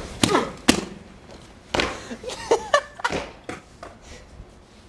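Skateboard knocking against concrete steps: a run of sharp clacks and thuds, the loudest two in the first second, with a few short vocal exclamations among them.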